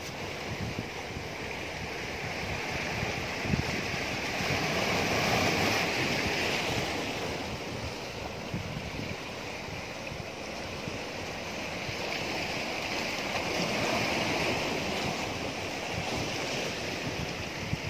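Sea surf washing against the boulders of a rock seawall, slowly swelling and easing, with wind buffeting the microphone.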